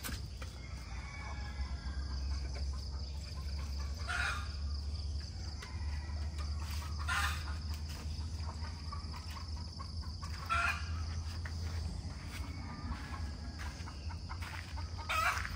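Chickens clucking, a short call every three to four seconds, over a steady high-pitched insect drone.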